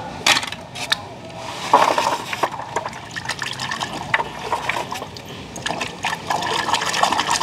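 A hand sloshing and splashing through a tub of muddy water, with irregular splashes and drips.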